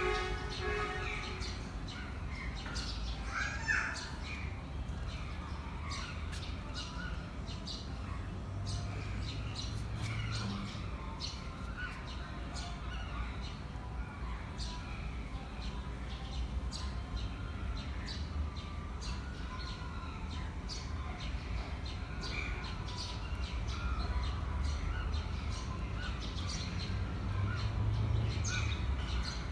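Small birds chirping and tweeting in quick, scattered calls over a steady low background rumble.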